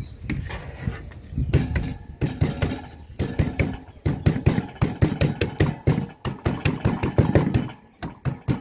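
A rapid run of knocks as seasoning is beaten to crush it instead of being cut up. It starts about a second and a half in and goes on, with short breaks, until near the end.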